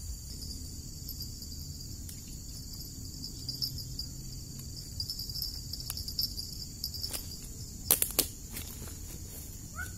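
Steady high-pitched chorus of insects (crickets or cicadas). Near the end come a few sharp knocks and rustles as someone moves right by the microphone.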